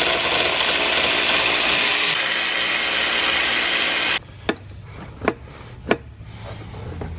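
A power tool running steadily at full loudness, stopping abruptly about four seconds in, followed by three sharp clicks.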